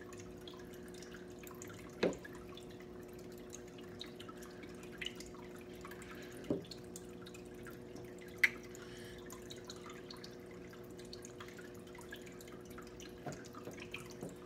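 A steady low hum with faint, scattered ticks like dripping throughout. Three sharper clicks come about two, six and a half and eight and a half seconds in.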